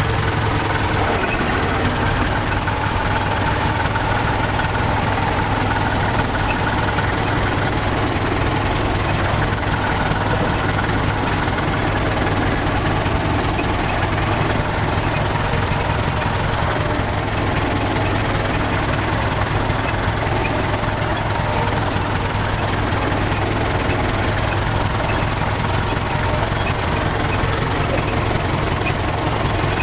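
Tractor engine running steadily at tick-over (low idle revs) while driving slowly in a low gear, heard from inside the cab.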